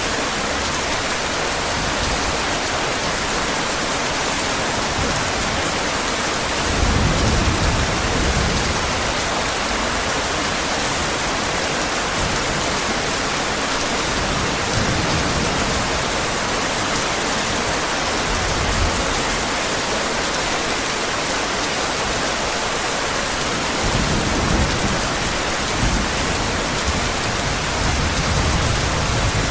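Heavy rain falling with a steady hiss. Low rumbles of distant thunder swell up about seven seconds in and again near the end.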